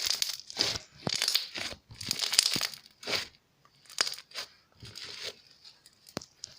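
Clear glitter slime being squished and worked in the hands: a run of irregular crackly squelches, with a couple of sharp clicks in the second half.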